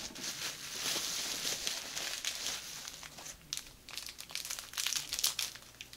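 Plastic bubble wrap crinkling and rustling as hands unwrap and handle it, a run of small crackles that is busiest in the first few seconds and thins out toward the end.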